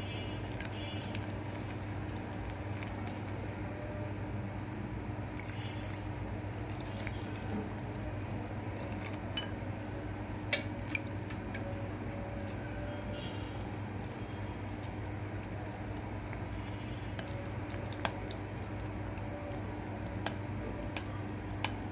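Green silicone spatula stirring a thick, wet flour batter in a glass bowl, giving soft wet stirring sounds with a few sharp ticks. A steady hum runs underneath.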